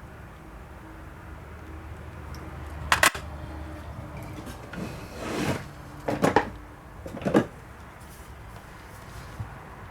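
Workbench handling noise from small plastic parts, a circuit board and battery holder, being handled. It comes as a sharp double click about three seconds in, a brief rustle, then two more clusters of clicks and knocks.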